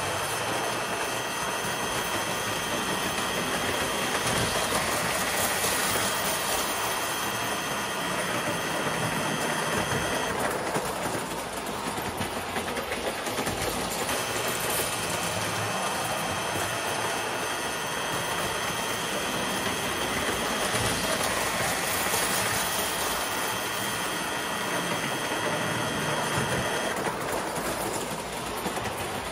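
Vintage standard gauge electric toy trains running on three-rail track: a steady whirr of motor and wheels, with a high whine that drops away twice, around eleven seconds in and again near the end.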